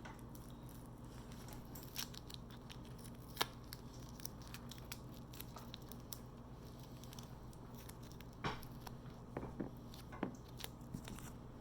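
Scattered light clicks and taps of small screws and a screwdriver being handled while a TV's circuit board is screwed back in, over a low steady hum. The sharpest clicks come about three seconds in and about eight seconds in.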